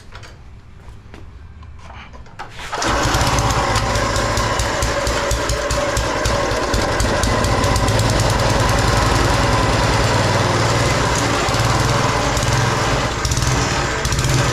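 Garden tiller's small gasoline engine starting about three seconds in, then running steadily with a rapid firing beat.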